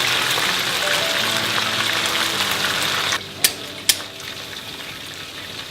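Hot oil sizzling loudly, as when frying chicken, over background music. The sizzle cuts off about three seconds in, followed by two sharp clicks.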